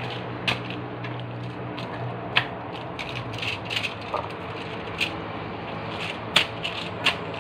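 Raw, oiled chicken thighs handled and turned over by hand on an aluminium-foil-lined tray: irregular crinkles and clicks of the foil, over a steady low hum.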